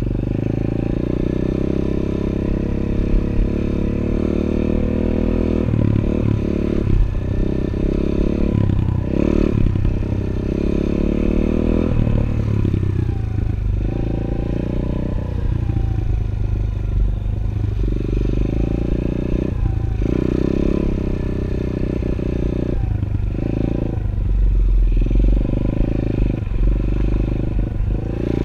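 110cc pit bike's small single-cylinder four-stroke engine running under way, revving up and dropping off again every few seconds as the throttle is opened and closed, recorded from the rider's helmet.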